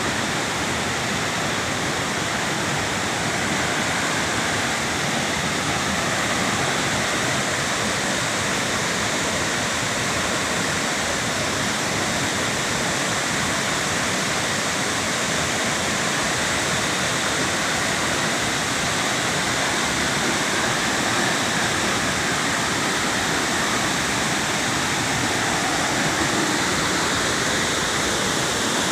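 Waterfall's steady rush of falling water, an even, unbroken roar-like noise with no change in level.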